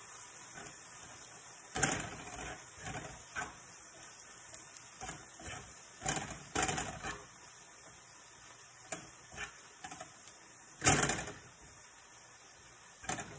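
Food sizzling faintly in a frying pan, with scattered clicks and knocks of kitchen utensils against the pan; the loudest knock comes near the end.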